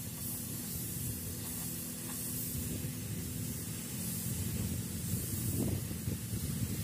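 Compressed-air paint spray gun hissing as it sprays paint onto a truck cab, the hiss swelling and easing with the passes. A steady low hum runs underneath.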